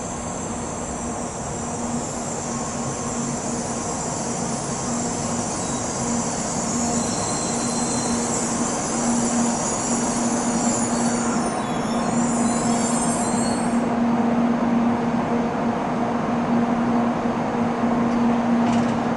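Shinkansen train running into the platform and slowing to a stop, a continuous rumble that slowly grows louder. A steady hum strengthens throughout, and a high hiss fades out about 14 seconds in.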